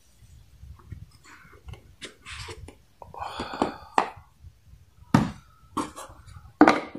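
Cardboard phone box being pulled apart: the outer sleeve of a Poco F1 box scrapes and rustles as it slides off the yellow inner box. Then come a few sharp knocks as the boxes are set down on the table.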